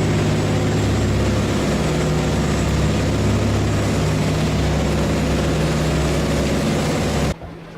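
Charter fishing boat's engine running steadily with a deep, even hum, heard on deck; it cuts off suddenly near the end.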